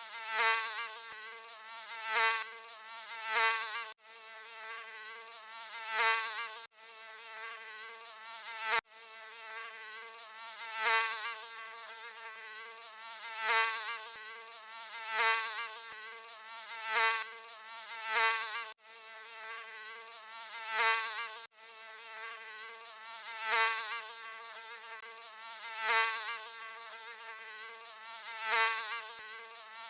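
Mosquito buzzing: a continuous whining drone with a wavering pitch that swells loudly every second or two, as if flying past the ear. A few abrupt short breaks cut into it.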